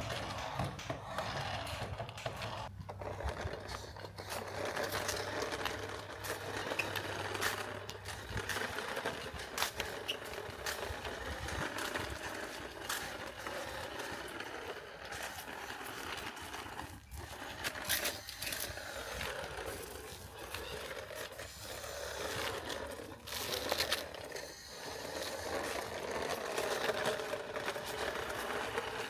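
Toy RC car running: its small electric motor whirring, rising and falling in pitch, with wheels scraping and clicking along the ground.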